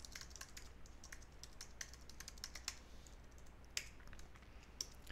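Faint, scattered keystrokes on a computer keyboard while code is typed into an editor.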